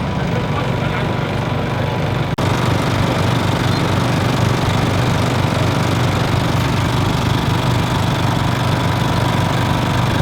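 An engine running steadily, with a brief break about two seconds in, after which it is a little louder.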